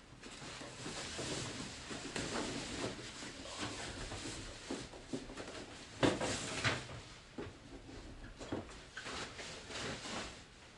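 Protective packing sheet rustling and crinkling as it is peeled off and handled over a flat monitor panel, in irregular bursts of crackles with the loudest about six seconds in.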